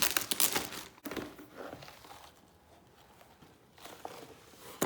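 Crinkly packaging being handled and unwrapped: loud crackling crinkles for about the first second, then quieter rustling, ending with one sharp click.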